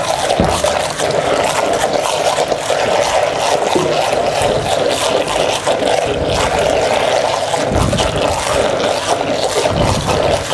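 Hand-held immersion (stick) blender running steadily in a stainless steel pan, puréeing raw rabbit meat and an egg into a forcemeat stuffing.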